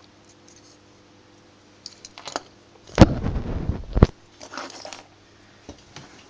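Small clicks and scrapes from the plastic and metal parts of a dismantled residual current device as they are handled. About three seconds in comes a loud scrape lasting about a second, ending in a sharp click, then a softer rustle.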